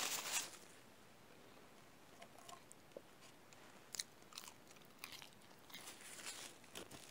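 Paper burger wrapper crinkling briefly at the start, then close-up chewing and biting of french fries, with scattered small crunches and clicks.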